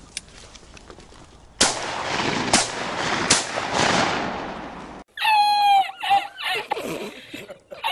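Three shotgun shots from over-under shotguns in quick succession, about a second apart, each ringing out across the field, fired at a woodpigeon and missing. About five seconds in they cut off suddenly, and a man's hard, wheezing laughter follows.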